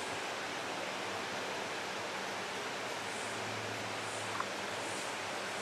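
Steady background hiss, with one faint click about four and a half seconds in.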